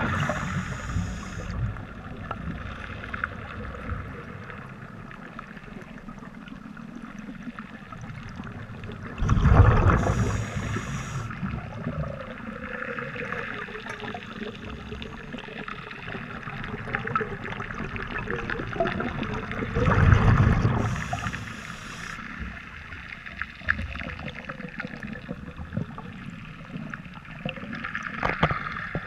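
Scuba diver breathing through a regulator underwater: a loud rush of exhaled bubbles about every ten seconds, three times, with a quieter steady underwater hiss between.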